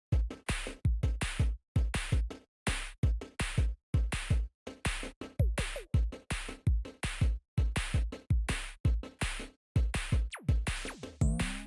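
Electronic background music with a fast drum-machine beat and heavy bass kicks, with a rising synth sweep near the end.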